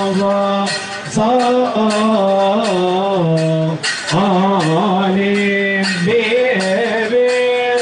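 Male voices singing a Coptic hymn in long, drawn-out notes with slow melismatic turns, over a regular percussion beat of about three strikes a second.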